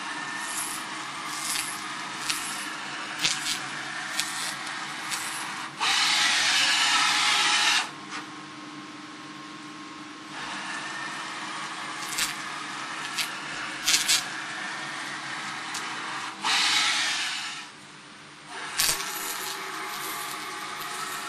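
Automatic laser cleaning head ablating baked-on residue from a metal chocolate-mould base plate: a steady hiss with sharp clicks scattered through it. The hiss grows much louder twice, for about two seconds each time, over a faint steady low hum.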